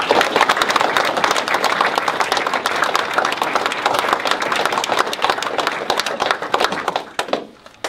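Audience applauding: a steady round of many hands clapping that thins out and dies away near the end.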